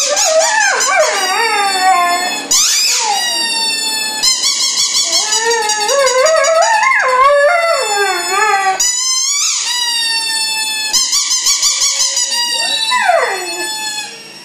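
A dog howling: a run of long, wavering howls that glide up and down in pitch, with short breaks between them, the last one falling away near the end.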